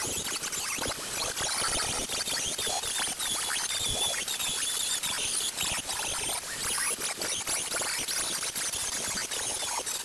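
Welding arc crackling steadily as a sheet-steel floor patch is welded onto a car's floor pan.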